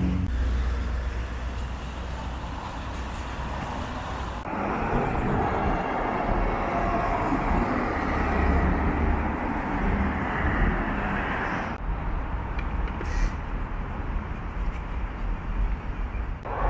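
Road vehicle noise: a steady engine-and-tyre rumble with hiss. The sound changes abruptly about four seconds in and again about twelve seconds in.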